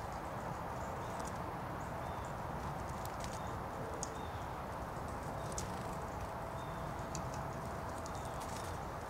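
Red-bellied woodpecker pecking at seed on snowy ground: scattered sharp taps, the strongest about four seconds in, over a steady outdoor hiss, with a few faint short high notes.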